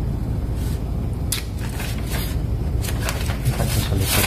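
A steady low hum under a run of short rustling and clicking handling noises, which start about a second in and come thicker near the end.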